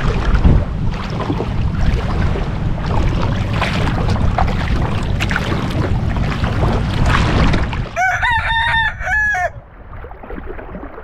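Wind rumbling on the microphone over lapping water. About eight seconds in, a rooster crows once, a broken call lasting about a second and a half.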